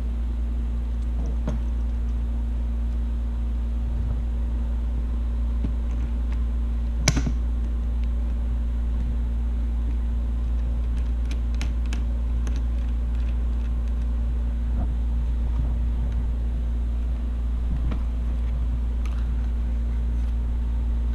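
Steady low hum with a constant tone running underneath. Over it come light clicks and taps of hands fitting banana jacks into a plastic ammo box, with one sharp click about seven seconds in.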